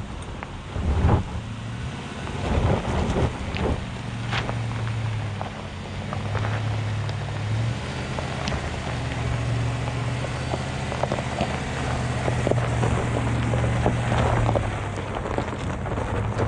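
Chevrolet Silverado ZR2's V8 pulling steadily as the pickup crawls up a steep rocky track in four-high with the rear locker engaged. Its tyres crunch and pop over loose rock and gravel, most sharply in the first few seconds.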